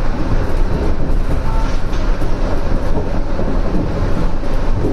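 Shonan Monorail Series 5000 suspended monorail car running along the line, a steady loud rumble heard from inside the car.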